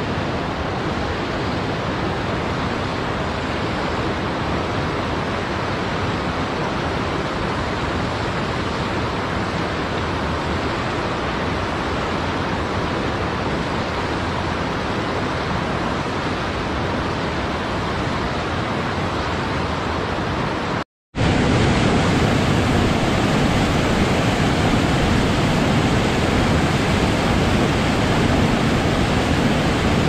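Steady rushing of a mountain river flowing over stones and small rapids. About two-thirds of the way in, the sound cuts out for a moment and comes back louder and fuller: a waterfall pouring over boulders.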